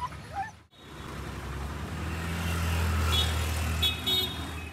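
A motor vehicle's engine running with a low rumble that builds to its loudest in the middle and then eases off.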